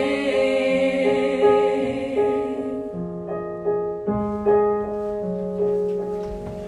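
Piano accompaniment under a held sung note that ends about three seconds in, after which the piano plays on alone with regularly repeated notes over a changing bass line.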